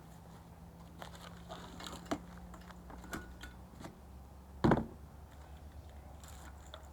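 Scattered light clicks and taps with one heavier thump about four and a half seconds in, over a low steady hum.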